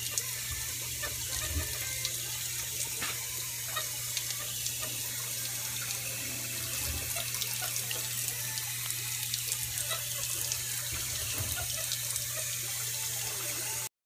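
Thin stream of water from a garden hose running steadily, splashing onto a young alligator's head and the wet concrete floor.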